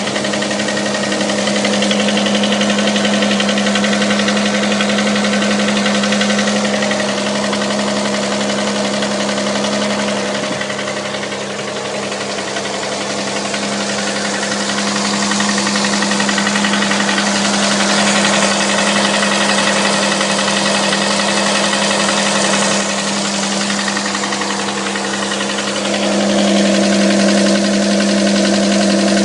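6GEA engine running with a knock, the fault the engine is being recorded for. There is a steady low hum, and it gets somewhat louder near the end.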